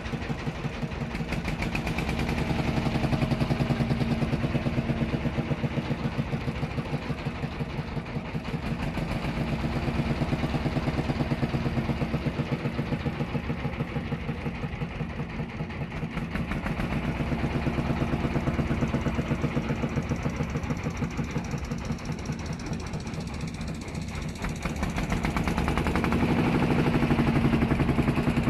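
Diesel boat engine running steadily with a fast, even chugging, growing somewhat louder near the end.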